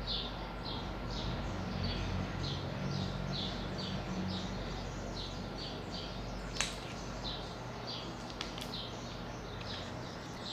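A bird chirping over and over, a short high note about twice a second, with two sharp clicks near the middle.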